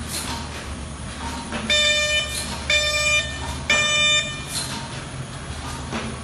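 A warning horn on a potting and conveyor line gives three short beeps about a second apart, over the steady hum of the running conveyors and a few light knocks.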